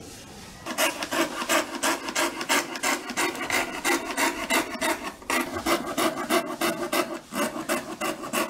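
Hand coping saw cutting a thin wooden sheet with rapid back-and-forth strokes, about three a second, starting a little under a second in.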